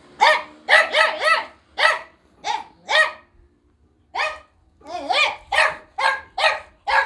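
A dog barking repeatedly: about a dozen short barks in quick runs, with a pause of about a second just past the middle.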